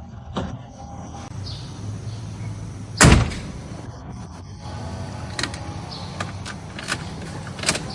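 A car door shuts with a loud thump about three seconds in, followed by several light clicks over the next few seconds.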